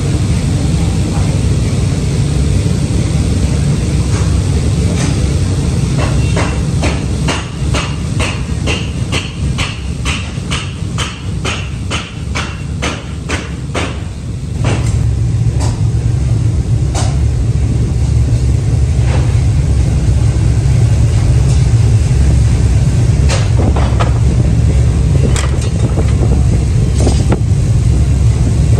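Forge furnace running under its air blast, a loud, steady low roar. Over it comes a quick run of metal clanks, about two or three a second, for several seconds in the middle, and then a few single clanks further on.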